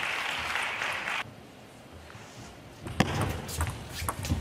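Table tennis ball being played in a rally: sharp, irregularly spaced clicks of the celluloid-type ball off bats and table, starting about three seconds in, the first the loudest. Before them, a steady hall noise that cuts off suddenly about a second in.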